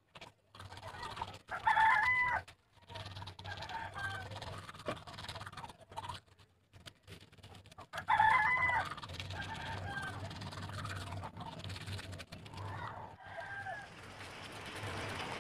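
Rooster crowing several times, each call holding a pitch and then dropping at the end; the loudest crows come about two seconds in and about eight seconds in.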